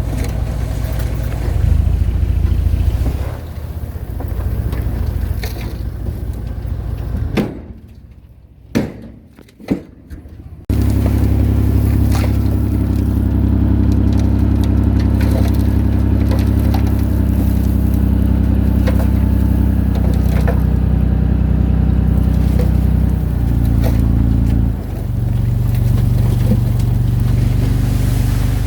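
Diesel engine of a Komatsu D21A bulldozer running steadily under work. The sound drops away for about three seconds about a third of the way in, with a few knocks, then comes back loud and steady and changes pitch near the end.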